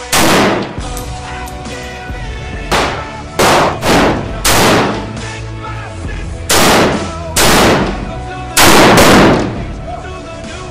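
Single rifle shots, about eight of them at irregular intervals of roughly half a second to two seconds, each with a short ringing tail. Background music with held tones plays underneath.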